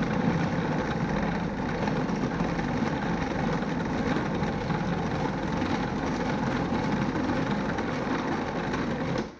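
Food processor motor running steadily as it kneads brioche dough, the stage where the dough comes together into a ball; the motor cuts off abruptly near the end.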